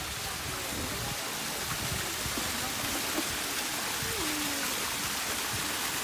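Small waterfall splashing down rocks into a shallow pool: a steady rushing hiss of falling water.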